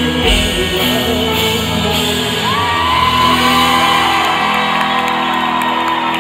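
Live rock band in a large arena: guitars, bass and drums playing until about halfway, then held notes ringing on as the song ends, with the crowd shouting and whooping.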